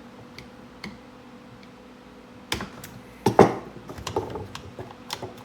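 Clicks and clatter of a string trimmer's throttle cable and plastic throttle-handle parts being worked and clipped in. Two faint ticks come first, then two sharp clicks about halfway through, the second the loudest, followed by a run of small rattling clicks.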